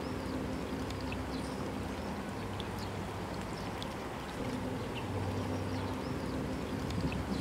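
Lakeside ambience: a low steady hum that drops out for about two seconds in the middle, with many short high bird chirps scattered throughout.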